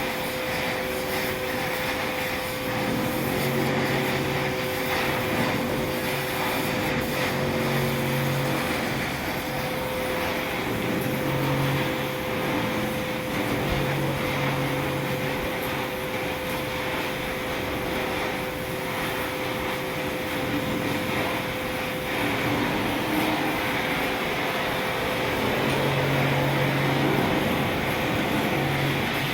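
Steady hissing of a gas welding torch, over a constant hum and a low machine drone that comes and goes every few seconds.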